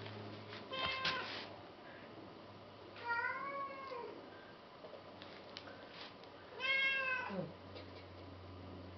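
Domestic cat meowing three times, attention-seeking: a short meow about a second in, an arching meow that rises and falls near three seconds, and a longer meow near seven seconds that slides down in pitch at the end.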